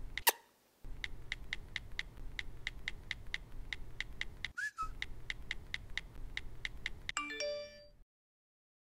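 Rapid, even ticking, about five ticks a second, over a low hum, with a short chirp about halfway through. It ends in a brief cluster of chiming tones about seven seconds in, then cuts to silence.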